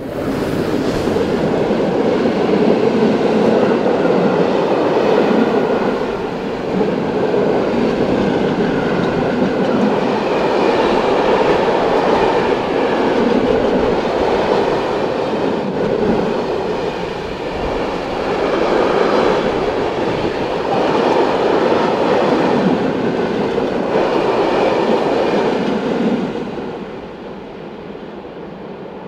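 Long freight train of covered wagons rolling past close by, the wheels running over the rails in a loud, steady rumble that swells and dips slightly as the wagons go by. It comes up suddenly at the start and drops off sharply near the end as the last wagons go into the tunnel.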